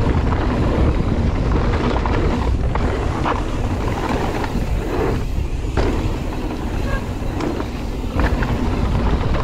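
Wind rumbling on the microphone of a mountain bike riding down a dirt trail, with the bike knocking and rattling over bumps, a sharp knock every second or two.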